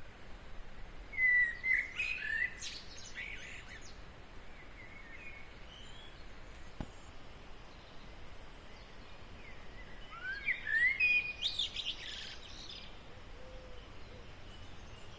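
Birds chirping in two short bouts of quick, gliding notes, over a faint steady outdoor background.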